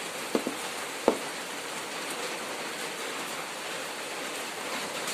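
Soya chunks frying in hot oil in a pan, a steady sizzle, with a couple of sharp clicks of a utensil against the pan about half a second and a second in.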